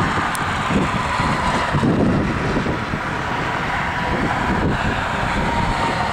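A steady mechanical drone carrying a continuous high whine, with wind buffeting the microphone in uneven low gusts.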